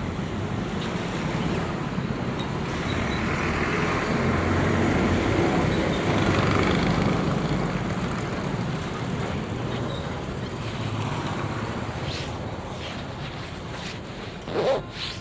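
Road traffic noise, swelling and easing as a vehicle passes, with a brief louder sound near the end.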